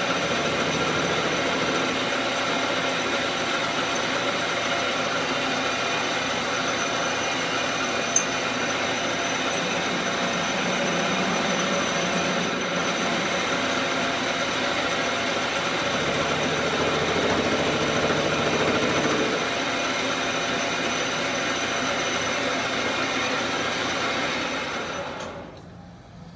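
Small benchtop metal lathe running steadily as it turns a shotgun barrel, with two short sharp ticks about 8 and 12 seconds in. The lathe is switched off and winds down near the end, leaving a quieter steady hum.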